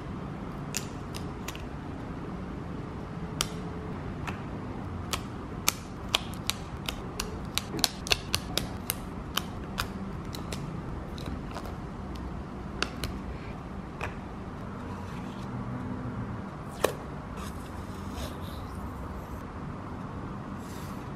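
Sharp plastic clicks and snaps as HIMI jelly gouache cups are handled and their hinged clear lids pried open, coming in a quick run mid-way. Near the end, a brief rasp of washi tape being pulled off its roll.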